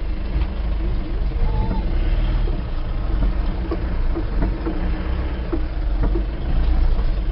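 Vehicle engine running, a steady low rumble heard from inside the cab.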